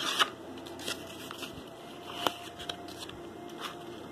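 Hands handling and pressing craft-foam petals onto a flower while hot-gluing them: soft rustling and scattered small clicks, one sharper click a little past two seconds in.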